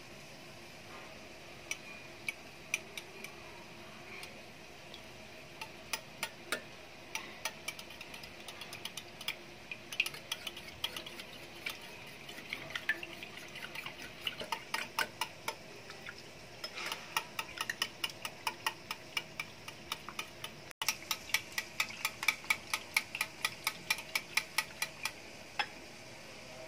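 Small wire whisk beating raw eggs in a glass bowl: a run of sharp clicks as the wires strike the glass, sparse at first, then quicker and more regular toward the end, with a brief break about three-quarters of the way through.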